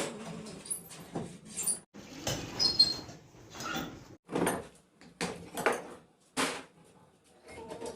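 Irregular short knocks, scrapes and squeaks of hand work on metal parts, about a dozen separate strokes with a brief high squeak near the middle.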